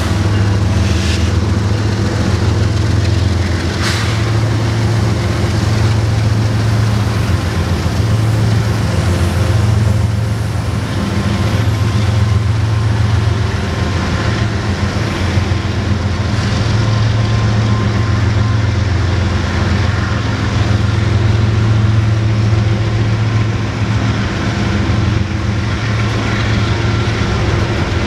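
Union Pacific manifest freight train passing at close range: the trailing diesel locomotive goes by at the start, then covered hopper cars roll past with a loud, steady low rumble from the wheels on the rails. A few sharp clanks sound in the first few seconds.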